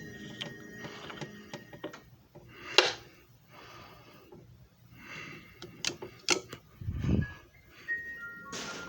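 Scattered clicks, taps and short swishes of hard objects being handled, with a sharp click about three seconds in and a dull thump about seven seconds in.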